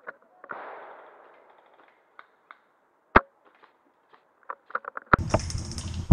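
Airsoft gunfire: scattered sharp snaps and clicks of single shots, the loudest about three seconds in, from the Ares Striker spring bolt-action sniper rifle firing. A steady rough noise starts suddenly near the end.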